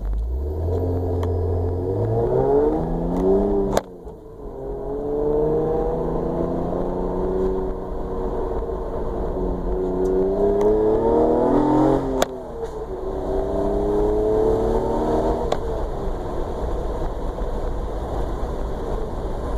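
A car engine accelerating through the gears: the engine pitch climbs, drops sharply at a gear change about four seconds in, climbs again more slowly until a second change about twelve seconds in, then rises briefly and settles to a steady cruise.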